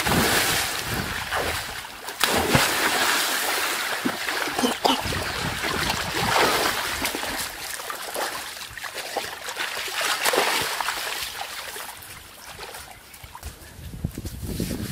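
Water splashing as a person drops off a slide into a pool, a big splash at the start, then uneven splashing and sloshing in surges as he swims through it.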